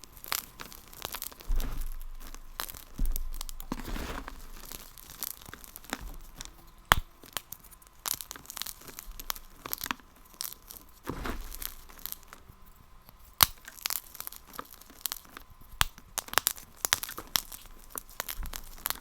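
Brittle material being crunched and crushed, sped up: a dense, irregular run of sharp cracks and crackles with a few louder snaps, the sharpest about seven and thirteen seconds in.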